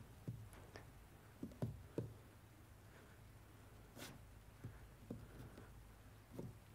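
Faint, sparse soft knocks and scuffs of a girl handling a cat on a wooden plank floor, with one sharper click about four seconds in.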